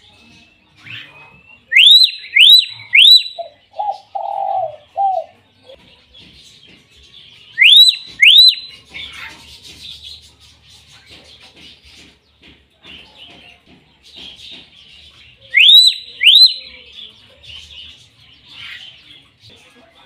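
Common hill myna giving loud, sharply rising whistles in quick runs: three in a row about two seconds in, two near eight seconds and two more near sixteen seconds. A short, lower cooing call comes just after the first run, and faint chirping of other birds runs underneath.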